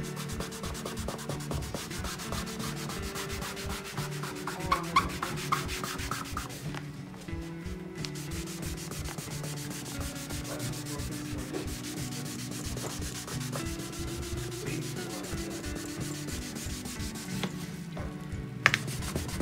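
A damp cloth rubbed briskly back and forth over an oil-finished oak parquet floor, scrubbing off dried coffee stains, in a continuous scratchy rubbing. There is one sharp knock near the end.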